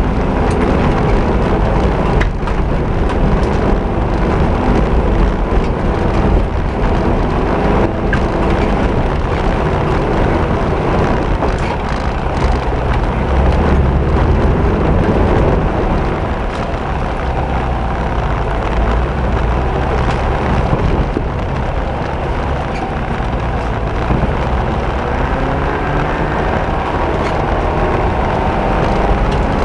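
Off-road vehicle's engine running hard on a dirt trail, its pitch rising and falling with the throttle, over a steady rumble of the drive with scattered knocks and rattles, heard from on board.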